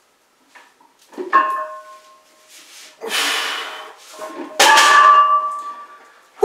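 Two metal clanks from iron gym weights being handled, each ringing on for about a second after the strike, with a short rustling scuff between them.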